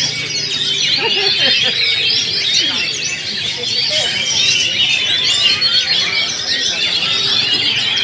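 Many caged Oriental magpie-robins (kacer) singing at once: a dense, continuous chorus of overlapping whistles and chirps.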